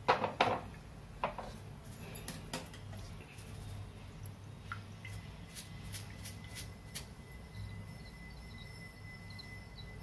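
Stainless-steel tea strainer clinking and tapping against a steel bowl as fried garlic and seeds are strained out of oil. The loudest clinks come right at the start, with a few lighter taps over the next couple of seconds and faint ticks later on.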